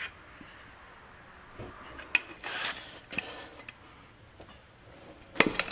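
A steel bar scraping and knocking against the inside of a truck wheel hub's bearing bore, with scattered metallic clicks and a quick run of sharp clicks near the end.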